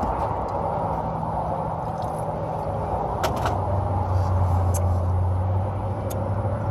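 Steady mechanical hum under a rushing noise; the hum grows a little stronger about four seconds in, with a few light clicks around three seconds in.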